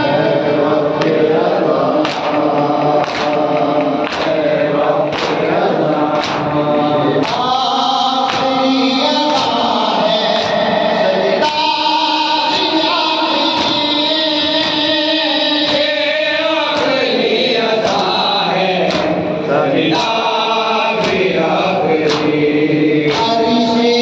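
Urdu noha lament sung by a male lead reciter into a microphone, with a group of men answering in chorus. Sharp slaps of hands striking chests in matam mark a beat about once a second.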